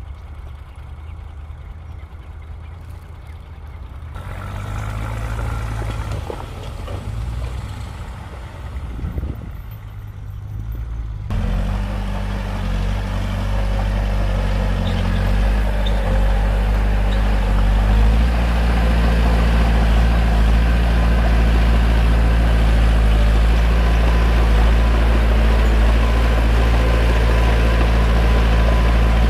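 Bulldozer's heavy diesel engine running with a steady low drone. It gets abruptly louder about four and eleven seconds in, and runs loudest and steady through the second half.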